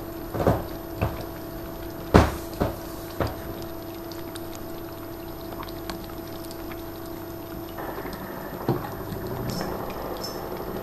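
Two-month-old British Shorthair kitten lapping milk from a saucer: faint, quick wet laps over a steady hum. Five loud knocks come in the first three seconds or so.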